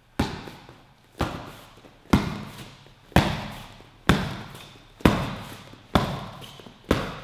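Gloved straight punches smacking into curved focus mitts, eight hits at an even pace of about one a second, each with a short echo.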